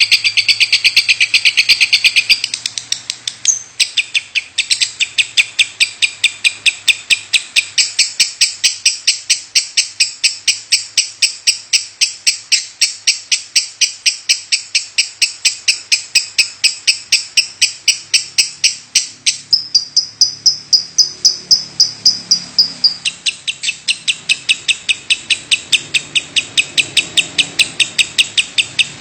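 Lovebird calling without a break in the style Indonesian keepers call 'batuk' (cough): a long run of sharp, high chirps, about four a second, after an unbroken trill that stops about two seconds in.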